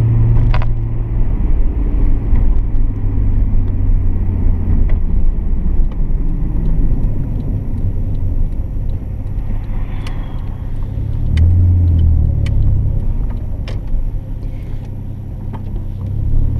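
Inside the cabin of a 1990 Nissan Skyline R32 GT-R under way: its twin-turbo RB26DETT straight-six runs with a low, steady drone over road noise. The engine note drops about eleven seconds in and comes back up near the end, and a few sharp clicks sound in between.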